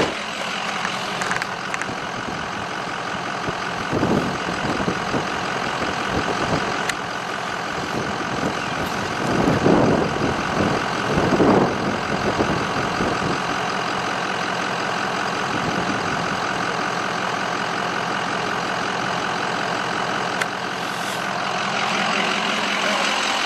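Steady engine and road noise from a vehicle, swelling briefly about ten seconds in and again near twelve seconds.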